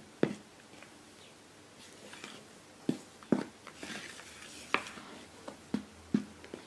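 Silicone spatula folding flour into whipped egg batter in a glass mixing bowl: soft wet batter sounds, with sharp knocks of the spatula against the glass at irregular intervals, about seven in all.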